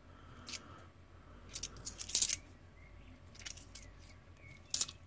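A few short clicks and clinks of Australian 20-cent coins being handled and set down, the loudest about two seconds in and another near the end.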